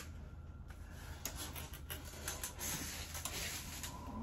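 Handling noise at a MIG welder: a sharp click at the start, then faint scattered clicks and rubbing as the welding gun and its cable are seated and moved.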